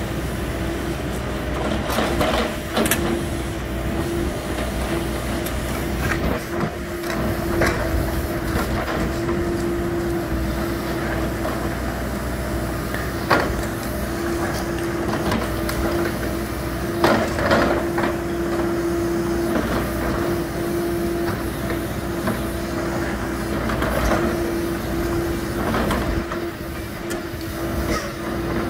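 Hidromek 102 S backhoe loader's diesel engine running steadily with a constant tone while its rear excavator arm digs a trench. Sharp knocks and scrapes of digging in soil come now and then, the loudest about halfway through and a pair a few seconds later.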